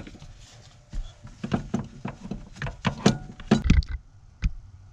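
Handling noise under a pickup truck's dash: a dozen or so irregular sharp knocks and clacks, some with a dull thud, bunched between about one and four and a half seconds in.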